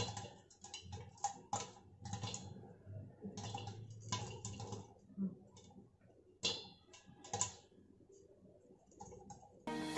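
Popcorn kernels popping in a lidded pan on the stove: scattered sharp pops at irregular intervals, some in quick clusters, thinning out and stopping about two seconds before the end.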